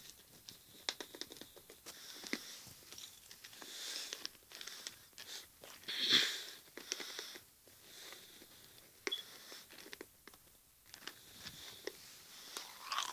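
A mouthful of Pez fizzy sweets being chewed with the mouth closed: scattered small crunches and wet mouth clicks, with a louder hissy burst about six seconds in.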